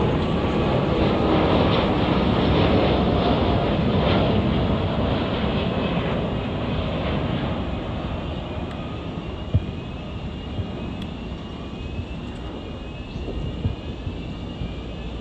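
Jet engines of a British Airways Boeing 787 Dreamliner, Rolls-Royce Trent 1000 turbofans, at climb power after takeoff, a steady roar that slowly fades as the airliner climbs away.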